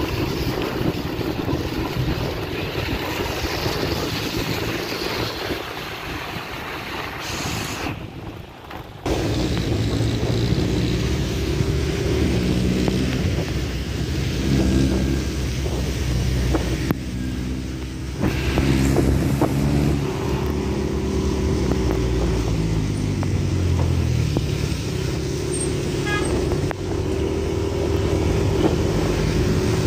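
Motorcycle engine running while riding, its pitch climbing and falling with throttle and gear changes, over wind noise on the microphone. The sound drops away briefly about eight seconds in.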